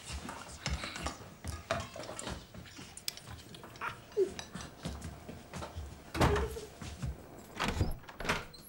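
Hushed shuffling, rustling and small knocks from people waiting in a dark room, with a couple of louder thuds about six and eight seconds in.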